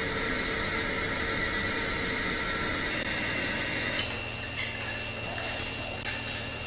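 Steady hiss with faint, steady hum tones: the background noise of a VHS camcorder recording, with no distinct sound event. The low part of the background shifts about four seconds in.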